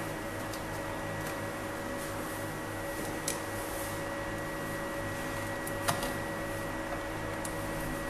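Steady background hum with a faint high whine, and two faint clicks of the laptop's plastic base panel being pried at, one about three seconds in and one about six seconds in.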